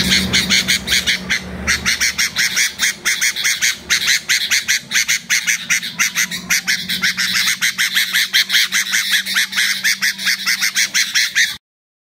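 Caged small songbird singing a long run of rapid, evenly repeated high chirps, several a second, over a faint low hum; the song cuts off abruptly near the end.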